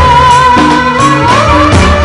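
Loud Indian folk dance music for Navratri dancing, with drum beats under a held, slightly wavering melody line.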